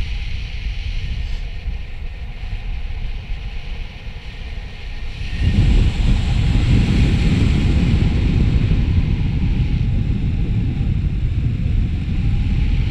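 Wind buffeting the microphone of a paramotor pilot in flight, a steady rumbling rush that gets suddenly louder about five and a half seconds in.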